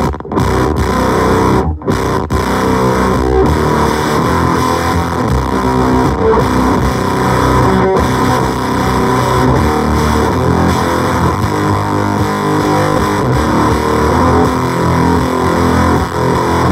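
Electric guitar played through an LOE Sounds Superfuzz pedal: continuous heavily fuzzed, distorted notes and chords, with two short breaks in the first two seconds.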